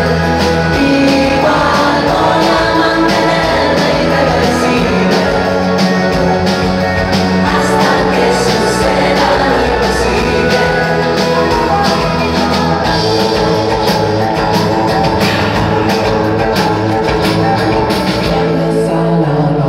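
Pop band playing live with singing, acoustic guitars, electric guitar and drums, loud and continuous.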